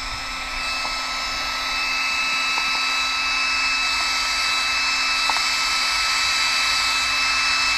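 Small electric cooling fans on an RC truck's motor and speed controller running steadily with a thin high whine, cooling the electronics after a hard run.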